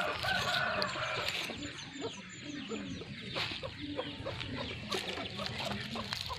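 Chickens clucking in short, scattered calls, with a run of quick, high bird chirps about two seconds in.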